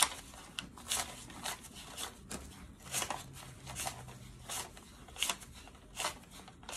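Paper US dollar bills counted out by hand, a crisp rustling flick each time a note is peeled off the stack, coming unevenly at roughly two a second.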